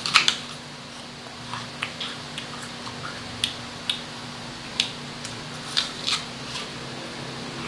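Crisp bite into a fresh whole red apple, the loudest crunch just after the start, followed by crunchy chewing with scattered sharp crunches and another bite about six seconds in.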